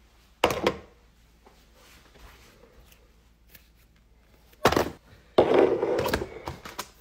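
Bottles, jars and packages knocking as they are handled and set down on a counter: one sharp knock about half a second in, then a cluster of knocks and handling noise around five seconds in.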